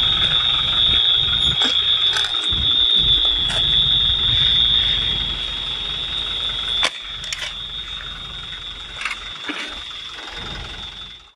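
A high-pitched electronic alarm sounding as one continuous steady tone, with low rumbling and a few sharp knocks underneath. The tone drops in loudness after about seven seconds.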